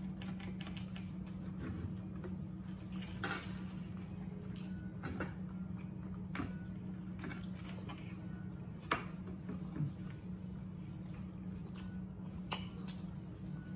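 Close-miked eating sounds: chewing of steak, with knives and forks clicking and scraping on ceramic plates now and then. A steady low hum runs underneath.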